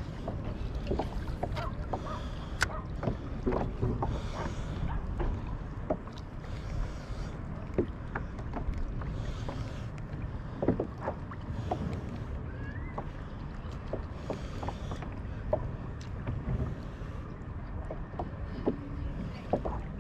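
Water slapping lightly against a plastic sit-on-top kayak, with scattered small irregular knocks and taps, over a steady low rumble of wind on the microphone.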